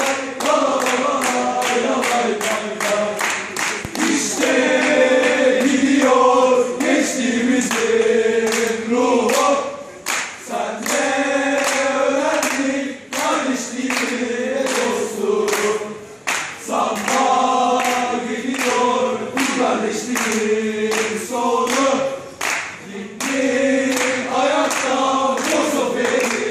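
A group of men singing a football supporters' chant together in unison, without instruments, over steady rhythmic handclaps.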